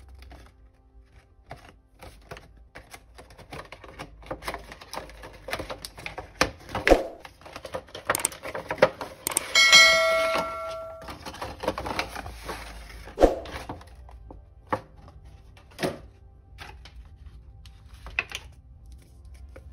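Cardboard toy packaging being handled and opened: light taps, scrapes and rustles of card, with a few sharper knocks. About ten seconds in, a short bell-like chime rings, a notification sound effect.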